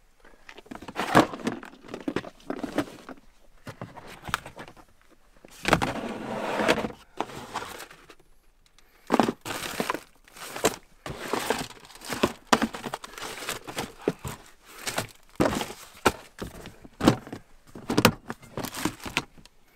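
Rummaging through plastic storage tubs: irregular knocks and clatters of plastic lids and bins and of boxes being shifted, with a longer rustle of packaging about six seconds in.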